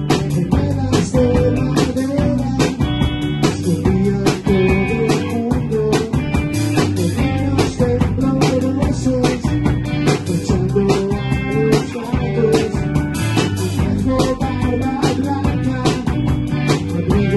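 Rock band playing live: drum kit keeping a steady, fast beat under electric guitars and bass guitar.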